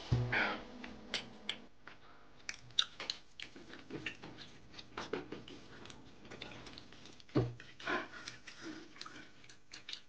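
People eating at a table: irregular light clicks and taps of a fork on a plate and glasses being handled, with chewing. A duller knock comes at the start and again about seven seconds in.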